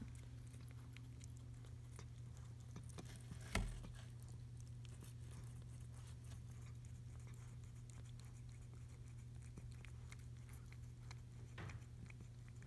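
Quiet room noise: a steady low hum with scattered faint light taps, and a single sharp thump about three and a half seconds in.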